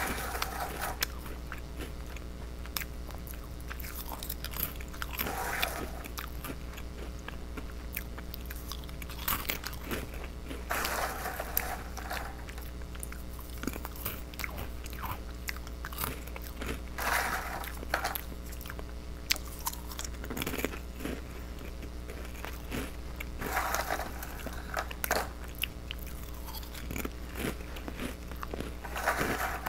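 A person biting and chewing crunchy fish-shaped cheese crackers close to the microphone: a steady run of sharp crunches, irregular in timing, over a faint steady low hum.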